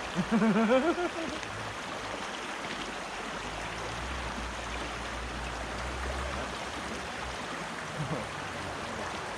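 Small creek flowing over rocks with a steady rushing sound, with a short exclamation from a man's voice in the first second.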